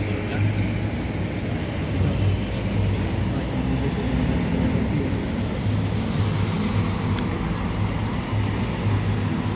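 A train running past: a steady rolling noise with a low hum underneath.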